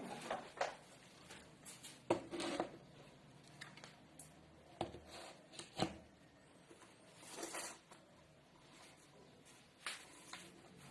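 Handling noises on a workbench: scattered light clicks and taps, with a short rustle about seven and a half seconds in.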